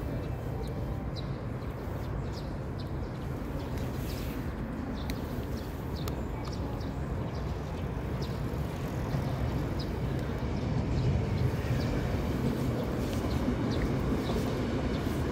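Electric commuter train passing, a steady rumble that grows louder about nine seconds in.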